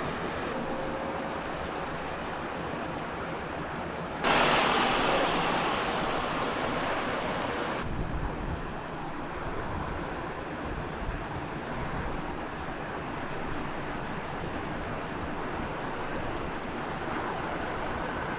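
Steady outdoor wind noise with a faint low hum, jumping louder and brighter about four seconds in for some three and a half seconds before dropping back abruptly.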